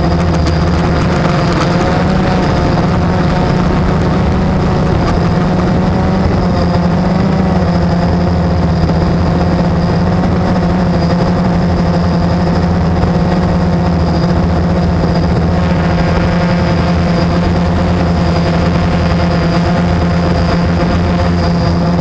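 Blade 350 quadcopter's electric motors and propellers humming steadily in flight, the pitch wavering slightly now and then as the throttle changes.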